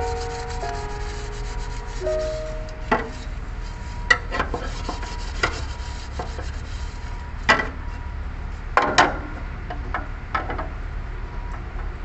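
Hand rubbing and scrubbing at a surface, with irregular sharp clicks and scrapes, the strongest about 3, 4, 7.5 and 9 seconds in.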